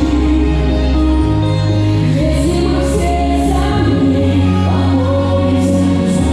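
Music with sustained, choir-like vocal chords over a bass line that moves to a new note every second or two.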